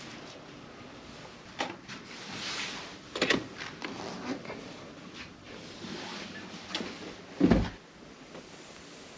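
Hotel room door with an electronic key-card lock being opened: a few clicks from the lock and lever handle, loudest about three seconds in, then a heavy thud about seven and a half seconds in as the door swings shut.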